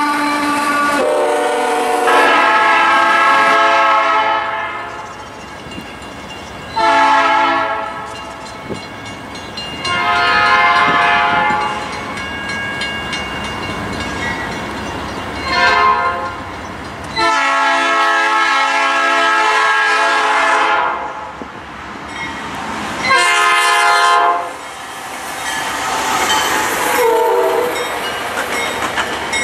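Diesel freight locomotive's multi-chime air horn sounding a series of blasts, short and long, the longest about four seconds, as the train approaches. Under it is the steady rumble of a freight train rolling past.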